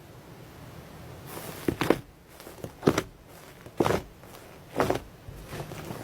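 Iceberg slime being pressed and squeezed by hand, its hardened top layer crackling and squishing in about five crunchy strokes roughly a second apart, after a second or so of faint hiss.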